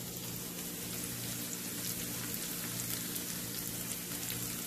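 Chopped onions and green chillies with mustard seeds and fennel sizzling in hot oil in a frying pan: a steady crackling hiss, over a steady low hum.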